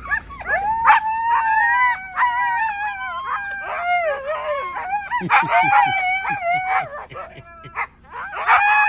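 Several Siberian huskies howling at once in overlapping, wavering calls, their excited vocal 'scolding' of an owner just returned home.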